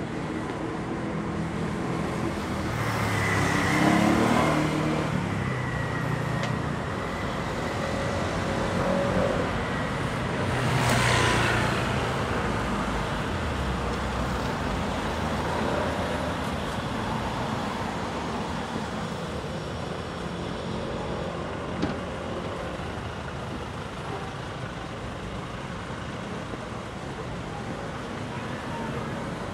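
City street traffic: cars and other vehicles passing on the road, with two louder vehicles going by about four and about eleven seconds in.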